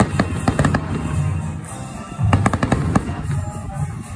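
Aerial fireworks shells bursting in quick volleys, sharp bangs and crackles over a low rumble. One cluster comes at the start and another about two and a half seconds in.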